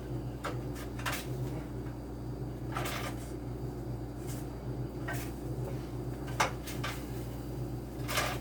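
A utensil clinking and scraping against a baking pan as pieces of baked chicken are flipped over: a handful of short knocks spread irregularly, over a steady low hum.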